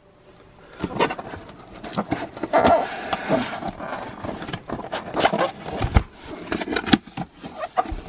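Cardboard packaging being opened by hand: corrugated cardboard scraping and rustling as the box is slid and its flaps folded open, with many sharp taps and knocks.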